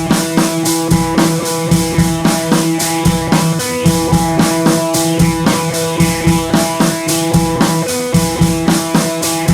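Music with a drum kit and guitar: a steady driving beat under sustained guitar chords.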